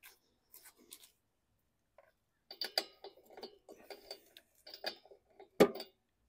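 Socket wrench clicking and small metal tool taps at a lawn mower engine's spark plug as the plug is being removed, followed by one sharp metallic knock near the end.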